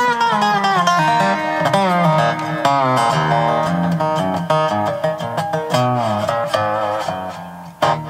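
Acoustic guitar and dobro playing an instrumental break, with some of the dobro's notes sliding up and down in pitch.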